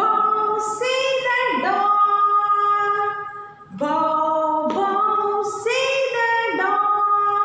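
A woman singing a children's rhyme unaccompanied, in long held notes, with a short breath about three and a half seconds in.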